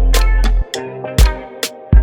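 Music with a beat: drum hits over held pitched notes and a deep bass, which drops out about half a second in.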